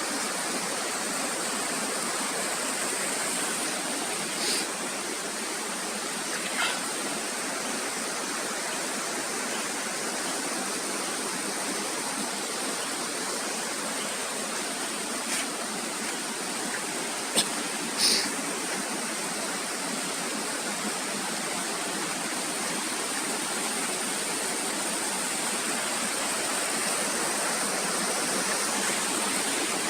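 Steady rush of falling water from a waterfall, with a few short clicks or knocks scattered through it.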